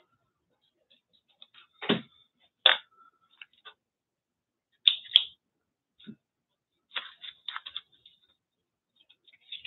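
Paper scraps and magazine cutouts being picked up and shuffled on a cluttered worktable: scattered short rustles and clicks, with a duller knock about two seconds in and a quick run of clicks near seven seconds.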